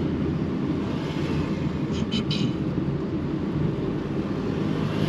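Steady rumble of a car driving, engine and tyre noise heard from inside the cabin, with a quick cluster of three short clicks about two seconds in.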